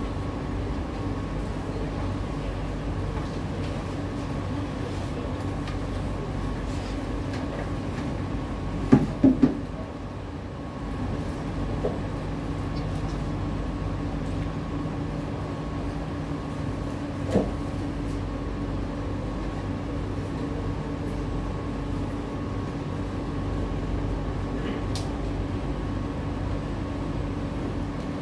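Steady hum of a stationary SMRT C151A train with its doors open at a platform, its air-conditioning and on-board equipment running with a few steady tones. A quick cluster of knocks comes about a third of the way in, and a single knock comes a little past halfway.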